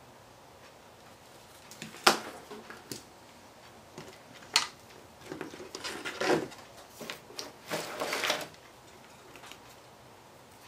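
Hands working on a workbench: a couple of sharp clicks and knocks as tools and parts are set down, then several seconds of clear plastic crinkling and rustling as it is handled.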